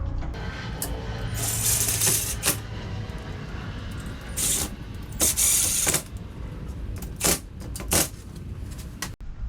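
Short bursts of metal clinking and rattling, half a dozen over the stretch, each under a second, over a low steady hum.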